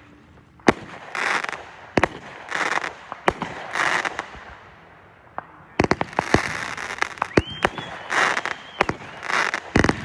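Consumer fireworks going off: a string of sharp bangs with hissing, crackling stretches between them, and a steady high whistle lasting over a second about seven seconds in.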